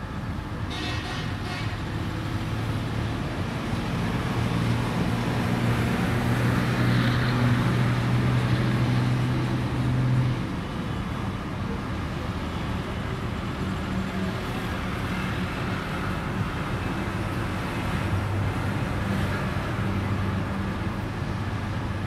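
Diesel-electric locomotive approaching slowly with a passenger train, its engine humming low and growing louder before dropping off suddenly about ten seconds in, mixed with road traffic from the buses and trucks alongside. A short high-pitched toot sounds near the start.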